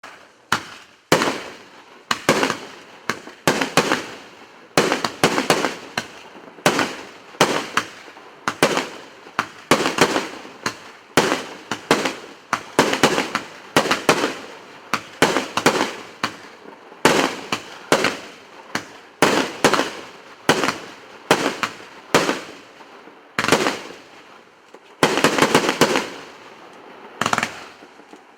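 A "Patriot" consumer fireworks battery (cake) firing shot after shot: sharp bangs about one a second, with a quicker flurry of shots near the end.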